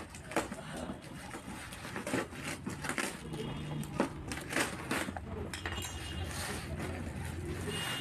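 Blade cutting through packing tape and cardboard on a box, with irregular scraping and ripping strokes and small clicks.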